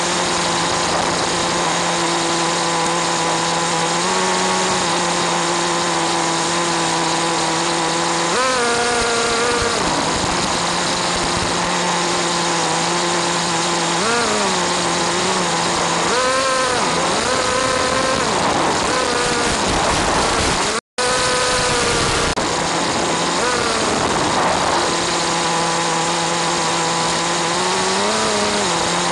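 Small two-stroke nitro RC car engine running, its pitch steady for stretches and then rising and falling several times as the throttle is worked, under a constant hiss of wireless-camera radio static. The sound cuts out completely for a moment about two-thirds of the way through.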